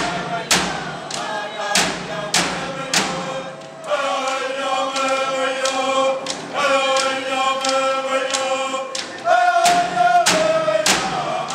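Inuit frame drums struck in a steady beat, a little under two beats a second, with a group of voices singing a chant. The drums mostly drop out for several seconds in the middle while the singers hold long notes, then come back near the end.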